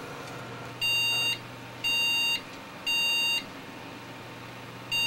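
A PC motherboard's POST beeper sounding an error code on power-up: three even half-second beeps about a second apart, a pause, then the run starting again, over a low steady hum. It is the BIOS complaining at startup, which the owner traced to dirty contacts on the RAM.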